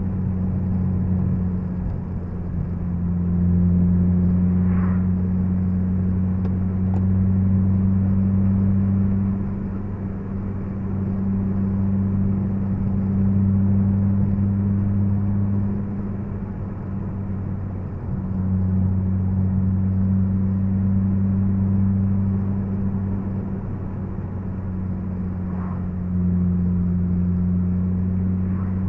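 Honda Civic Si's K20Z3 2.0-litre four-cylinder engine droning steadily at cruising speed, with tyre and road noise, heard from inside the cabin. The drone swells and eases every few seconds.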